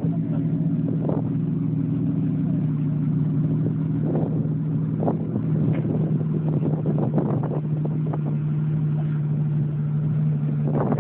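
Aston Martin V12 idling steadily, a low even engine hum from the exhaust.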